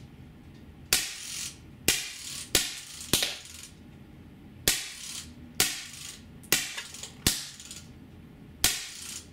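Drozd Blackbird BB machine gun firing single 4.5 mm steel BBs on remote-line high-pressure air: nine sharp cracks, each followed by a brief ringing, spaced irregularly about a second apart.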